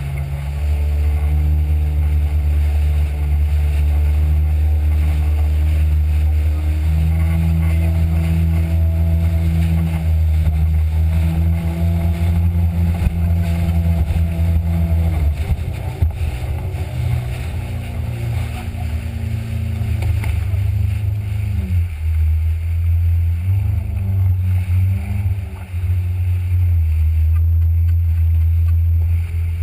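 Jet ski engine running hard at speed, a steady engine note that drops in pitch about halfway through and again about two-thirds through as the throttle eases, then picks back up near the end.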